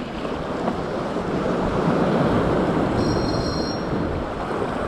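Surf washing over a rocky shore, with wind on the microphone; the rush swells about two seconds in. A short, faint high whistle is heard about three seconds in.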